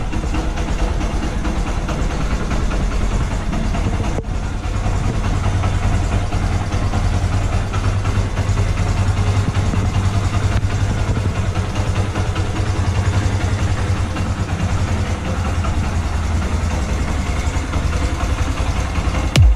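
Yamaha YBR 125's air-cooled single-cylinder four-stroke engine idling steadily, fed from a newly fitted homemade fiberglass fuel tank.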